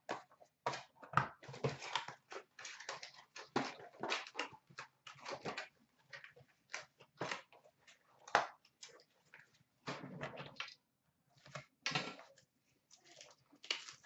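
A box of trading cards being opened by hand and its packs handled: a run of irregular crinkling, tearing and rustling of cardboard and wrapper.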